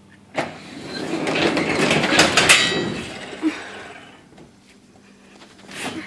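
Freshly lubricated sectional garage door opening on its electric opener: a click about half a second in, then the rushing noise of the door travelling, which swells to a peak around two seconds and fades out by about four seconds.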